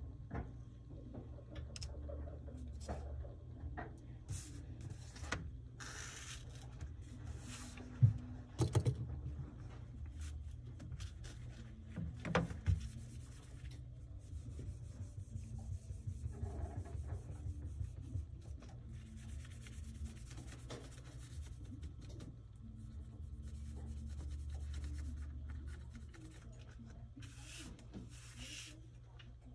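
A cloth wipe rubbing back and forth over an iPad Pro's glass screen, with hands handling the glass panel. A few sharp knocks, the loudest about eight seconds in and another about twelve seconds in.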